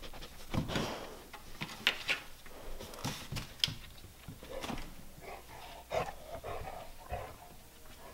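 A pet moving around close by on a tiled floor: short breathy noises with scattered light taps and clicks.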